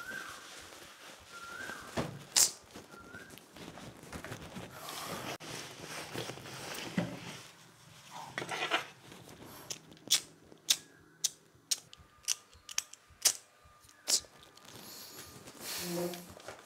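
A curtain being drawn along its rail, then a run of about a dozen sharp, irregular clicks over a few seconds.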